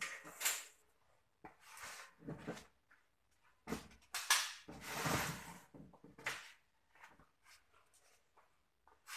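Handling noises: an irregular run of short rustling and scraping sounds, each under a second or so, as electrical wire and flexible tubing are pulled and handled on a concrete floor.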